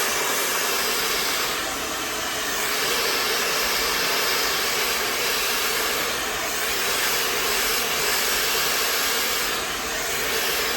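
A 160,000 RPM high-speed hair dryer fitted with a diffuser nozzle runs steadily, blowing air with an even rushing hiss that swells and dips slightly in level.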